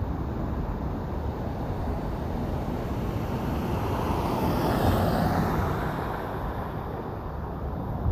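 Road traffic ambience: a steady low rumble of traffic, with one vehicle passing by that swells to its loudest about five seconds in and then fades.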